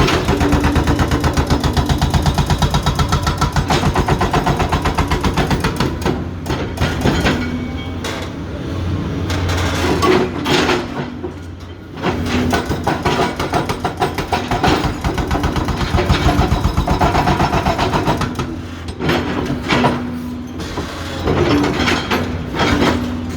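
Hydraulic breaker (jackhammer) hammering rock in rapid, even blows over the steady running of its engine, the hammering easing off and pausing a few times before starting again.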